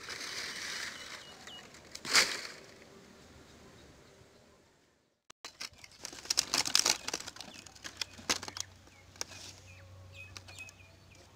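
Dry palm fronds rustling and crackling as they are dragged and handled, with one loud crunch about two seconds in and a run of quick crackles in the second half. Birds chirp faintly in the background.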